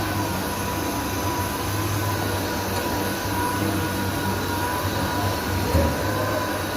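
Power sander running steadily against a car body panel, sanding epoxy primer, with a continuous high whine and a low hum under the rasp of the abrasive.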